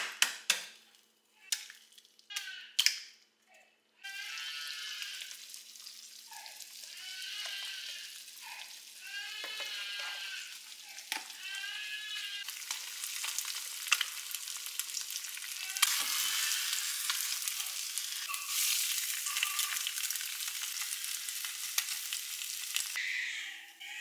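Food frying in a pan, a steady crackling sizzle that grows louder about sixteen seconds in. A few sharp clicks come first, and several short, high calls rise and fall over the sizzle in its first half.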